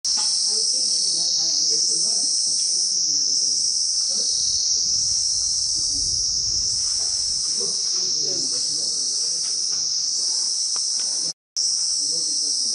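Loud chorus of forest insects: a steady, shrill high-pitched drone with an upper layer that swells and fades about once a second. It cuts out briefly near the end.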